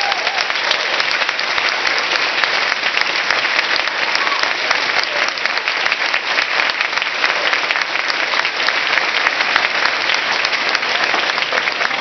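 Audience applauding: dense, even clapping that holds steady.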